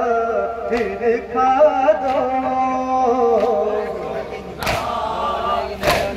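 A group of men chanting a Muharram noha (lament) together in long, wavering lines. Near the end the chant breaks for sharp hand strikes about a second apart, the chest-beating (matam) of the mourners keeping time.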